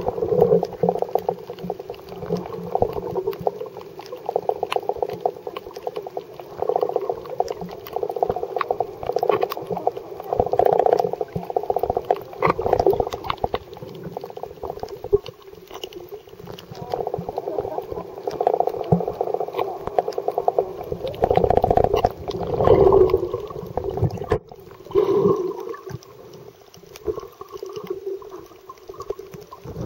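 Muffled underwater sound picked up by a camera submerged in the sea: surging water noise in waves a second or two long, thick with small crackling clicks. It grows loudest a little past twenty seconds in, cuts out briefly, and carries on quieter.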